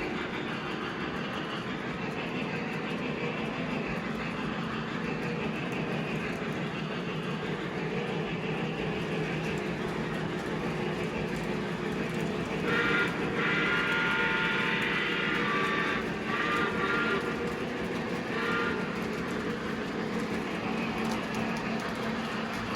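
Model train running on the layout track, a steady rumbling run. Past the middle a louder, higher-pitched sound with several tones joins in for a few seconds and breaks into shorter pieces near its end.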